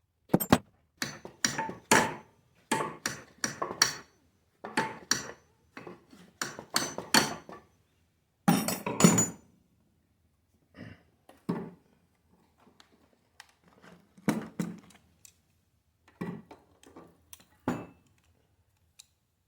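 Hand tools and metal parts knocking and clinking during work on a power wheelchair's drive motor: clusters of short, sharp knocks, some with a brief ring. They come thick and fast for the first half and more sparsely later.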